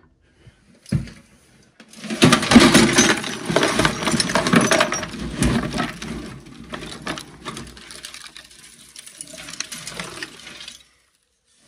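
A load of scrap copper wire and small metal bits poured from a bin into a plastic tote, landing on copper pipe: a continuous rattling clatter that starts about two seconds in, is loudest at first, then thins out and stops shortly before the end. A single knock comes about a second in.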